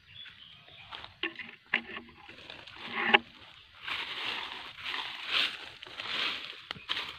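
Footsteps crunching and rustling through a thick layer of dry fallen leaves at a walking pace, with a few short sharper crackles in the first half.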